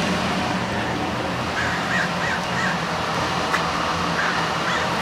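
Steady rushing air and hum of an inflatable bounce house's blower fan, with a few faint short chirps about two seconds in and again near the end.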